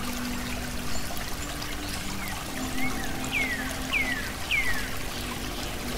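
Steady flowing-water sound like a trickling stream, with faint sustained low music notes beneath it and three quick falling whistles a little past the middle.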